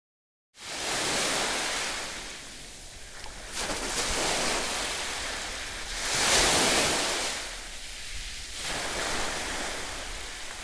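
Sea surf on a beach, the water washing and splashing in swells every few seconds. It starts abruptly about half a second in.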